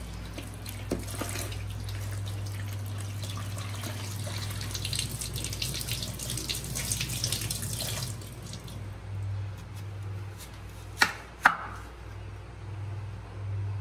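Kitchen tap water running and splashing as vegetables are rinsed by hand over a plastic basin and steel sink, stopping about two-thirds of the way through. Then two sharp knocks about half a second apart: a knife striking a wooden cutting board as an onion is cut.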